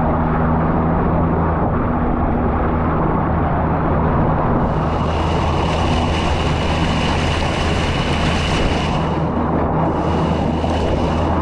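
Churning water rushing and splashing along the hull of a moving motorboat, over the steady low hum of the boat's engine. The water grows hissier from about halfway through until near the end.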